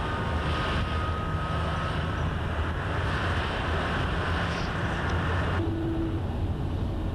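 Engine and road rumble heard inside a moving coach, a steady low drone with hiss above it. The hiss drops away suddenly about two-thirds of the way through.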